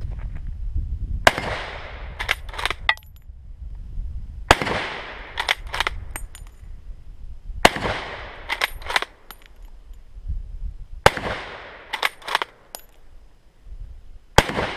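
K98k Mauser bolt-action rifle firing 8mm Mauser: five shots about three seconds apart, each followed by a trailing echo. About a second after each shot come a few short clacks as the bolt is worked to chamber the next round.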